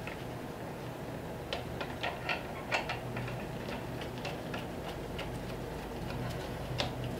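Light, scattered clicks as a fork cap is threaded by hand onto the top of an upside-down motorcycle fork tube, over a steady low hum.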